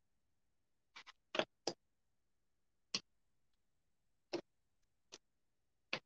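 Wooden beads of a beaded garland clicking and knocking against the tabletop and each other as the garland is laid out straight: about eight short, sharp clacks, four in quick succession in the second second, then one every second or so.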